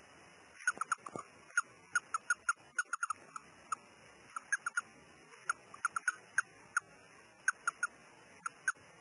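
Russian dwarf hamster making a long run of short, high squeaks, irregular and in quick little clusters of two to four, starting about half a second in.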